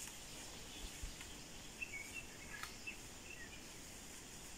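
Quiet forest ambience: a few short, high bird chirps about two to three and a half seconds in, over a faint steady hiss, with a couple of light clicks.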